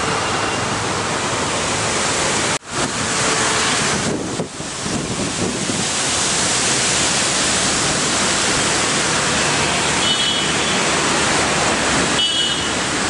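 Storm wind gusting through the trees and buffeting the microphone: a loud, steady rush of noise that cuts out for an instant about two and a half seconds in.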